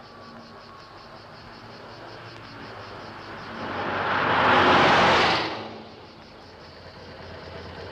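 A car drives past close by: its tyre and engine noise swells over about two seconds, peaks about four to five seconds in, then falls away quickly. A low, steady rumble runs underneath.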